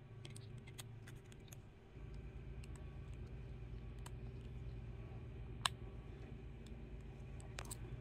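Skateboard bearings and Shark Wheel urethane wheels being handled and fitted with a hand tool: scattered small clicks and taps, with one sharp click a little past halfway and another near the end. A low steady rumble comes in about two seconds in.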